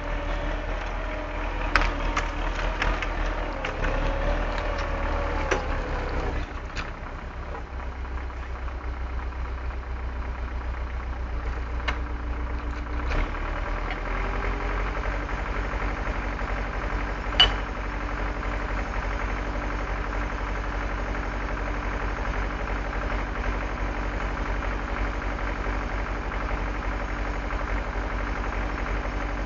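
MTZ-82 tractor's four-cylinder diesel engine running steadily, its note wavering in the first few seconds before settling. Several sharp knocks and clanks break in over the first half, the loudest one a little past the middle.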